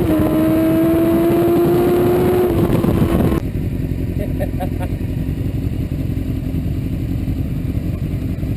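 Sport motorcycle engine at high revs on track, with heavy wind noise: the pitch drops once right at the start, as at an upshift, then climbs slowly. A little over three seconds in it cuts abruptly to a quieter motorcycle idling steadily.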